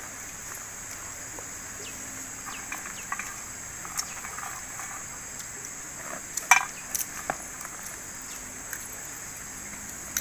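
Tropical forest ambience: a steady high-pitched insect drone, with scattered short bird chirps and clicks and one louder, sharper call about six and a half seconds in.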